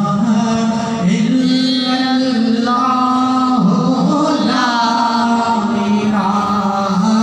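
A man chanting Islamic devotional verse unaccompanied into a handheld microphone, drawing out long held notes that step up and down in pitch.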